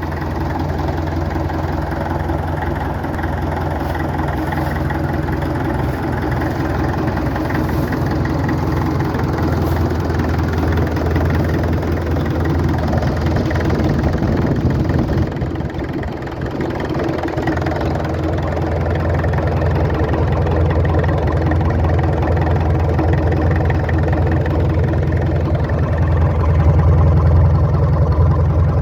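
International BTD6 crawler's BD-264 diesel engine running steadily at a low idle, a little louder near the end.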